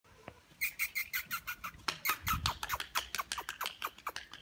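A person making rapid kissing sounds to call a puppy: a quick run of short squeaky smacks, about six a second, starting about half a second in.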